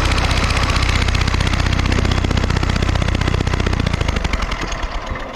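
Briggs & Stratton lawn mower engine spun over fast in a spark test, a rapid, even clatter that fades and slows near the end.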